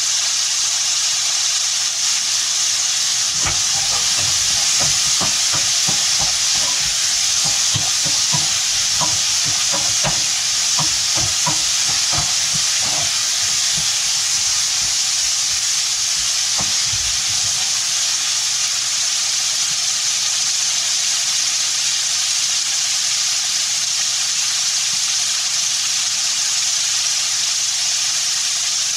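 Food sizzling steadily in a hot wok. A spatula stirs and knocks against the wok in quick, irregular strokes from about three seconds in until about seventeen seconds in.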